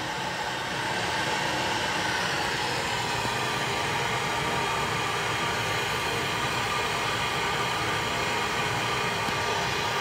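Handheld gas torch burning with a steady hiss, its flame heating a soldered pipe joint.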